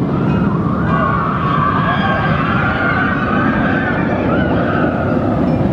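Steel roller coaster train running along its track, a loud steady rumble, with riders' screams wavering above it.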